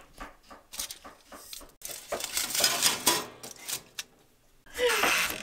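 Dry, crisp Jerusalem artichoke chips rustling and clicking on a foil-lined metal baking tray as it is handled and slid onto the rack of a toaster oven, with a louder clatter near the end.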